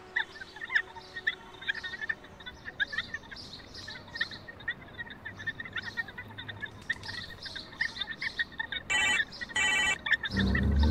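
Birds chirping in many short calls. Near the end come two short bursts of a ringing telephone, each a fast trill, and a deep low sound starts just before the end.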